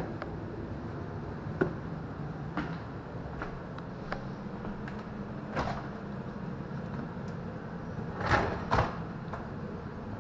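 Dishwasher's lower wire rack rolled out on its track: a pair of rattling, scraping knocks about eight seconds in, the loudest sound here. Scattered soft clicks and knocks come before it, over a steady low hum.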